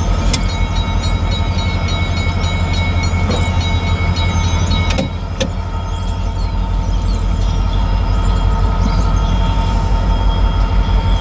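Freight train running by: a steady low rumble with a regular pulse. A thin high whine rides over it for the first five seconds.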